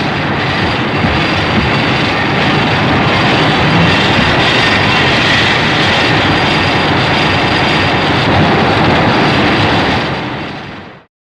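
Sound effect from the 1954–55 Godzilla films: a loud, steady rushing noise over a low rumble that starts abruptly and fades out near the end.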